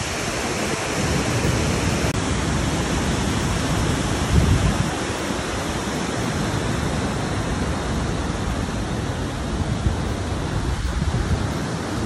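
Waterfall and fast mountain-river rapids rushing steadily, a continuous wash of water noise.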